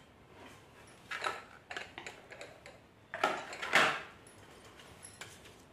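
Handling noise: a scatter of light knocks and clicks, with a louder clatter about three to four seconds in.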